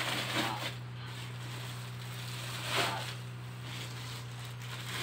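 Rustling and crinkling of a white woven plastic sack and plastic-wrapped zipper rolls being packed into it, in irregular bursts with the loudest about three seconds in, over a steady low hum.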